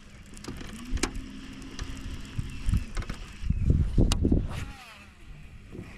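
An angler casting a baitcasting rod and reel: sharp reel clicks, a short steady hum lasting about two seconds, then a loud rustle of jacket sleeve brushing right against the chest-mounted camera about three and a half seconds in.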